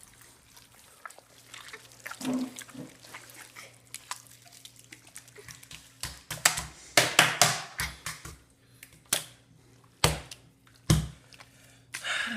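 Homemade slime being squished in the hand, making wet squelching, popping sounds that are described as sounding like water. It starts with faint scattered clicks, grows into a run of loud squelches about six seconds in, and gives two more single squelches near the end.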